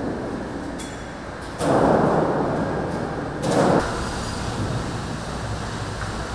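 Large sheet of metal scraping across a concrete floor as it is dragged, in two loud rasping pulls, one about one and a half seconds in and a shorter one near the middle, over a steady low hum.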